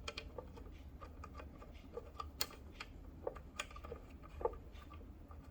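Light, irregular clicks and ticks of small screws being started by hand into a fuel injection control module (FICM), with a few slightly louder taps of metal on metal.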